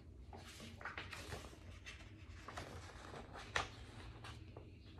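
Pages of a large picture book being turned and handled: soft, scattered paper rustles, with one sharper rustle about three and a half seconds in.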